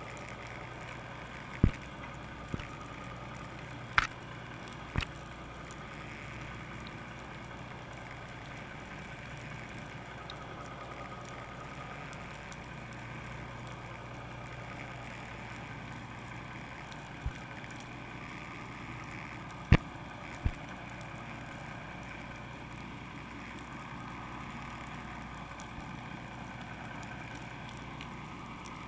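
A fishing boat's engine idling with a steady low hum, broken by a few sharp knocks, two pairs close together near the start and another pair about two-thirds of the way through.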